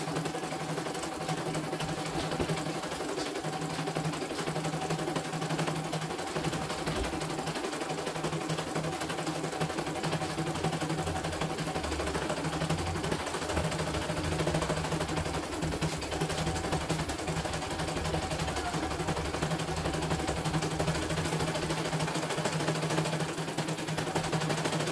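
CNY E900 computerized embroidery machine stitching a design: a rapid, steady rattle of needle strokes over a steady motor hum.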